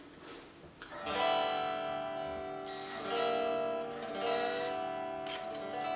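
Electric guitar played through a freshly retubed Marshall JVM410 valve amp: a chord strummed about a second in and left to ring, followed by several more strummed chords.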